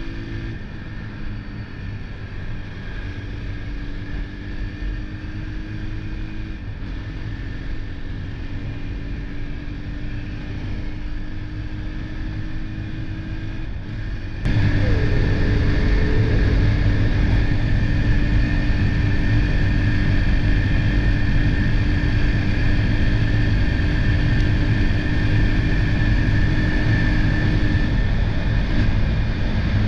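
Motorcycle engine running at a steady cruising speed, with heavy wind noise on the microphone. The sound jumps abruptly louder about halfway through, and the engine's pitch falls near the end as it slows.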